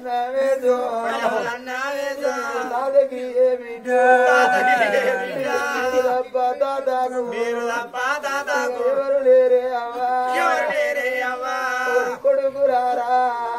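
Oggu Katha ballad singing: a voice chants the sung story in long, wavering phrases over a steady drone.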